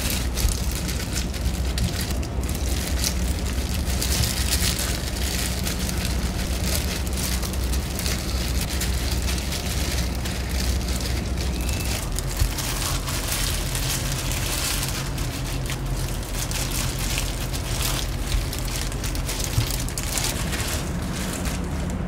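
Crinkling and rustling of thin disposable plastic gloves as hands press and shape sticky cooked rice, with a constant crackle, over a steady low hum.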